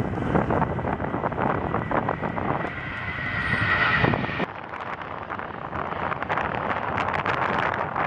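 Jet aircraft engine noise with a steady whine that swells, heavily buffeted by wind on the microphone. The sound changes abruptly about four and a half seconds in.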